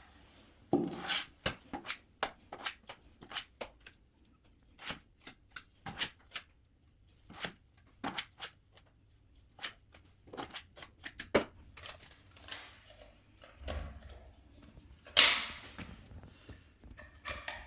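Scattered light clicks, taps and short scrapes of hand work: a plastic socket box being set into wet bonding compound in a wall recess and the compound worked around it. The taps come irregularly, with a louder one about fifteen seconds in.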